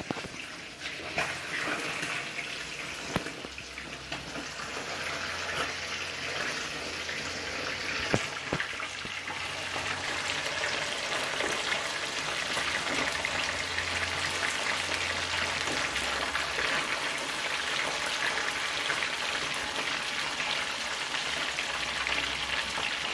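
Fish fillets frying in hot vegetable oil in a cast-iron skillet: a steady sizzle that builds a little over the first several seconds and then holds, with a few sharp clicks in the first half.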